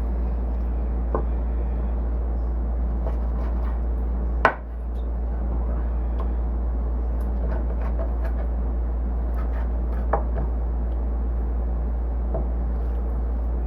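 Scattered knocks and taps of kitchen knife and utensils on a cutting board, one louder knock about four and a half seconds in, over a steady low hum.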